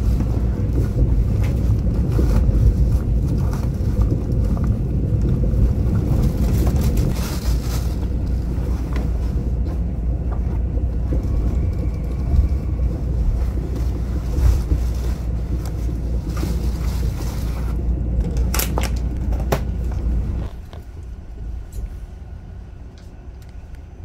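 Running rumble of a Mugunghwa-ho passenger train heard from inside the carriage, with a few clicks from the wheels and the car. Near the end it falls away sharply as the train slows to a stop at the station.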